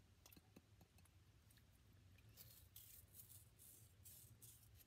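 Faint scraping and light clicks of a small digging tool picking at a wet, softened gem-dig ball, getting busier from about halfway through.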